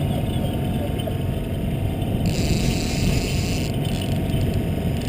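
Boat engine running steadily at trolling speed, a low, even rumble. A hiss comes in about two seconds in and lasts a second and a half.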